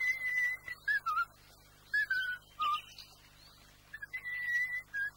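A person whistling a slow tune: long held notes broken by short notes stepping down in pitch, in phrases with pauses between them.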